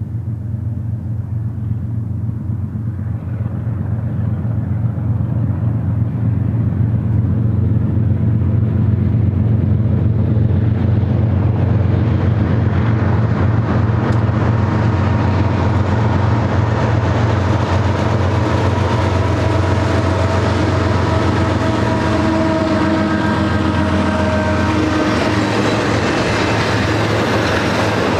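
Two BNSF GE C44-9W diesel locomotives (V16 four-stroke engines) running under power as they draw near and pass, a deep steady engine drone growing louder. The drone then gives way to the rolling rumble and clatter of the intermodal trailer cars' wheels on the rails, with a few faint squealing tones near the end.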